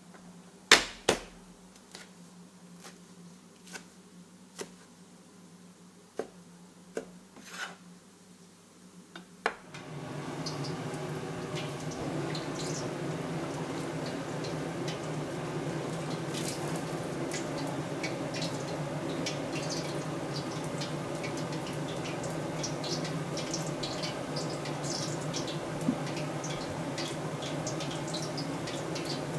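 A few sharp knocks of a knife and plates at a cutting board, then, about ten seconds in, the steady rushing of a commercial wok range's gas burner, with small crackles running through it.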